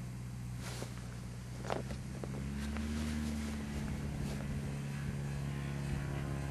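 Morane-Saulnier Rallye 100 light aircraft's piston engine and propeller running. About two and a half seconds in, the engine note rises and gets a little louder as power comes up for the takeoff run.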